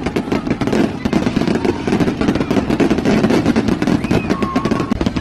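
Fireworks going off in a rapid, continuous string of crackles and bangs.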